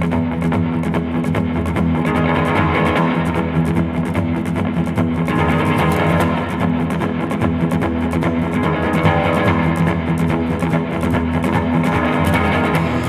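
Soundtrack music: a rock-style piece with guitar, bass and drums keeping a steady beat, starting just as the title card gives way to the opening shots.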